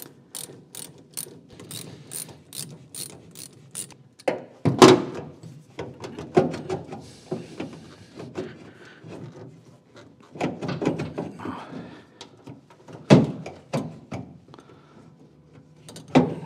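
Small ratchet clicking steadily, about three clicks a second, as it undoes the worm-drive hose clamps on a fuel-tank filler hose. After about four seconds the clicking stops, giving way to knocks and rubbing as the rubber hose is worked loose and the ratchet is set down on the steel boot floor.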